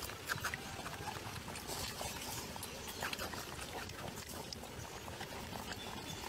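Newborn macaque twins suckling at their mother's nipples: small, irregular wet smacking and clicking mouth sounds.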